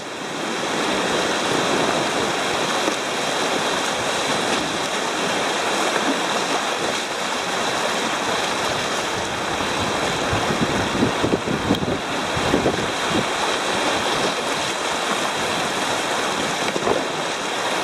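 Whitewater rushing and splashing around a kayak running river rapids, with paddle strokes in the water and wind buffeting the microphone. A few louder splashes come around the middle.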